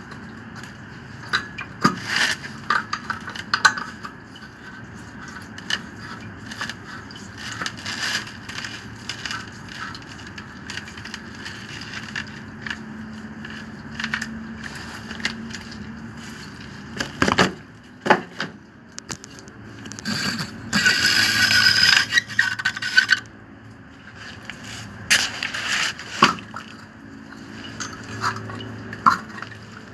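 Irregular scraping, knocking and clinking of hand tools and pipe fittings during plumbing work on a water pump's connections. About two-thirds of the way in there is a louder, harsher scraping that lasts about two seconds.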